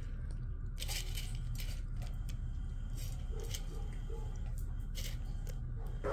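Steady low room hum with a few scattered light clicks and ticks, and a brief louder sound right at the end.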